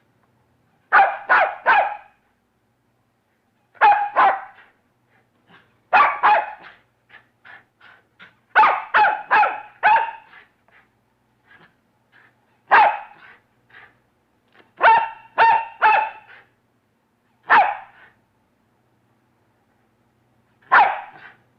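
A canid barking: sharp, high-pitched barks in short runs of one to five, with pauses of a second or two between runs.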